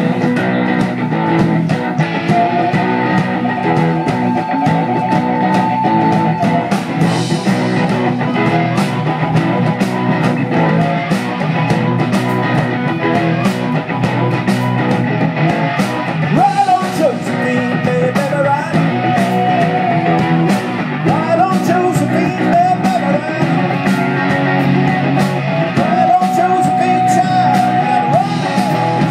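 Live rock band playing through a PA: electric guitars, bass and drums, with a lead line of gliding, bending notes over the top.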